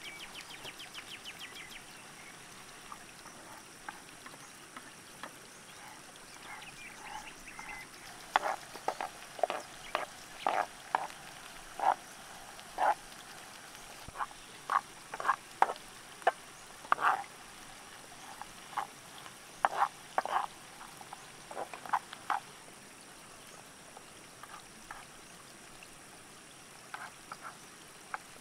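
Frogs croaking: a run of short, sharp calls, loudest through the middle, then thinning out near the end.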